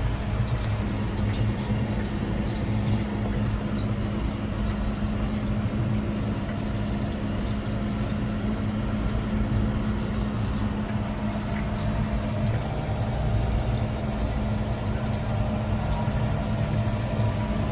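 Tractor diesel engine running steadily with an even hum.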